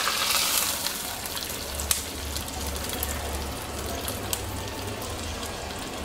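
Hot ghee tempering sizzling as it is poured onto cooked ven pongal: a hiss that is loudest at first and settles into a steady, quieter sizzle, with a couple of light clicks.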